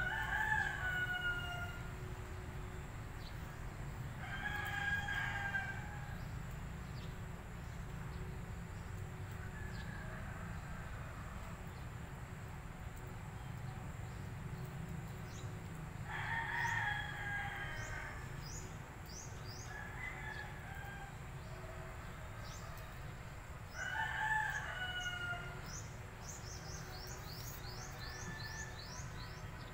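Roosters crowing repeatedly: four clearer crows of about two seconds each, each falling at the end, with fainter crows between them. Quick high chirps come in the second half over a steady low rumble.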